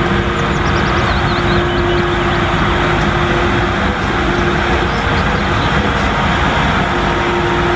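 Road sweeper running: a steady, loud machine noise with a constant low hum.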